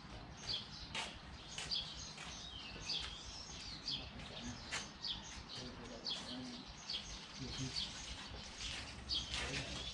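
Birds chirping: many short, high chirps repeating throughout, over a faint background.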